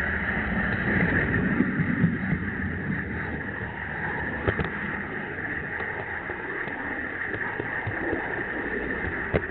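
Jouef HO-scale model train running along its track, heard from aboard one of its wagons: a steady rolling rumble and rattle of wheels on rails with a high hiss, and a few sharp clicks.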